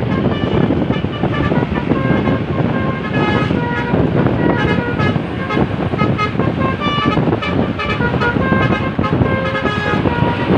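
A bus's 'telolet basuri' melody horn playing a long, rapid tune of short tooting notes that step up and down in pitch. A loud low rumble of engine and traffic noise runs underneath.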